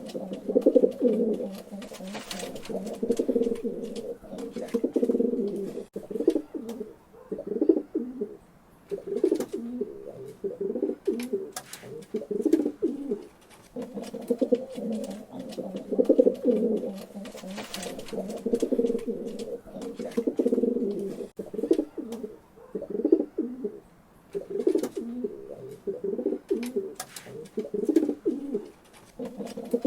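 Pigeons cooing continuously, low rolling coos in repeated overlapping phrases, with faint scattered clicks.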